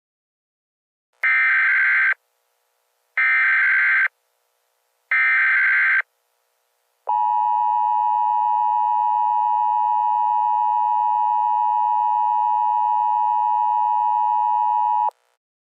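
Emergency Alert System tones: three short bursts of SAME header data, about a second each and a second apart, then the steady two-tone EAS attention signal held for about eight seconds before it cuts off sharply.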